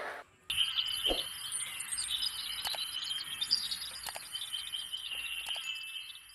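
Outdoor ambience of birds chirping and insects trilling steadily, with a few short clicks about two and a half, four and five and a half seconds in.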